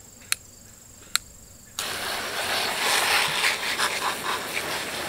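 A couple of sharp clicks from the garden-hose spray nozzle. Then, a little under two seconds in, water bursts on and sprays hard onto a chainsaw, a steady hiss of water hitting the saw.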